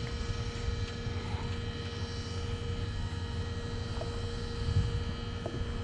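A steady, engine-like droning hum holding several fixed tones, over an uneven low rumble.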